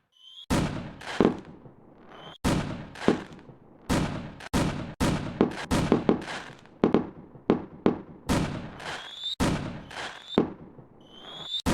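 A quick, uneven series of sharp bangs, each fading away slowly, with several preceded by a short rising whistle: the sound of whistling fireworks going up and bursting.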